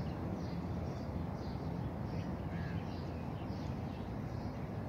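Birds calling repeatedly with short chirps over a steady low background rumble.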